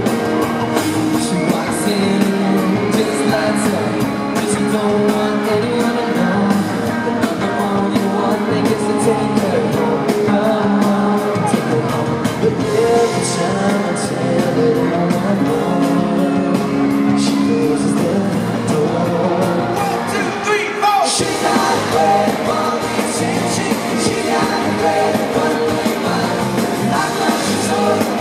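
A boy band singing a pop-rock song live over a full backing band with a steady beat, heard from within the audience, with fans screaming along.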